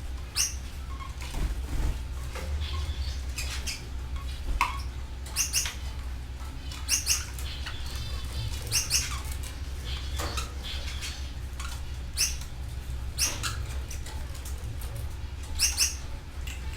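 Canaries chirping: short, high chirps every second or so, often in quick pairs, with a brief trill about halfway through, over a steady low hum.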